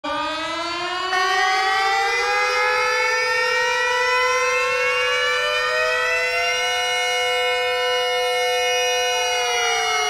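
Three civil defence sirens sounding together in a test. Their tones wind up one after another to steady pitches, and the sound gets louder as another siren joins about a second in. The lowest begins to wind down shortly before the end.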